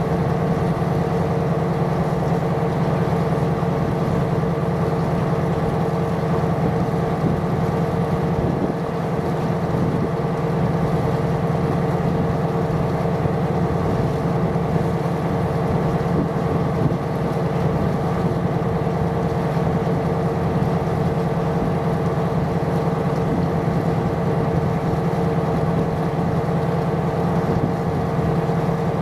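A ship's diesel engine running steadily: a low drone with a constant hum, unchanging throughout.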